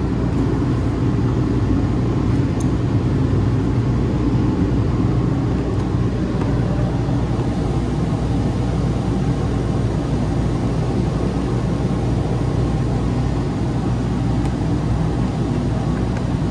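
Steady low-pitched machine running noise, unchanging throughout.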